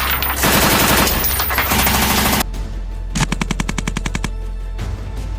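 M240B machine gun firing on full auto: a sustained burst for the first two seconds or so, then after a short break a shorter burst of distinct shots at about ten rounds a second.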